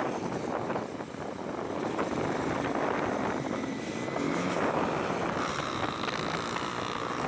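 Honda CB 300 motorcycle running on the road, with wind rushing over the microphone.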